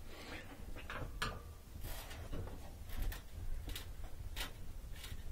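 Scattered light knocks and clicks, about eight over a few seconds, from hands pushing and working a washing machine's stubborn top panel loose, over a low steady hum.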